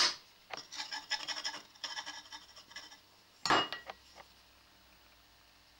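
Rubbing and scraping on a floured pastry board as the pasty is trimmed and handled, in short scratchy bursts, with a louder knock about three and a half seconds in. Then only faint room tone.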